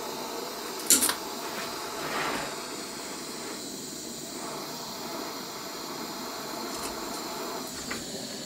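Handheld butane torch burning with a steady hiss while it heats an Anderson connector terminal to melt solder into it. A sharp click about a second in.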